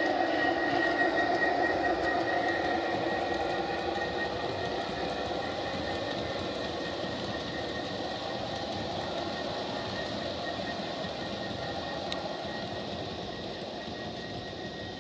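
Large-scale garden-railway oil train rolling along the track: a steady rumble of the tank cars' wheels on the rails, with a thin high whine in the first few seconds that fades out. The whole sound slowly gets quieter.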